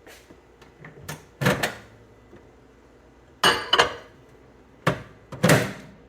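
Kitchen clatter: about half a dozen sharp knocks and clunks of things being handled, the loudest in quick pairs about one and a half, three and a half and five and a half seconds in.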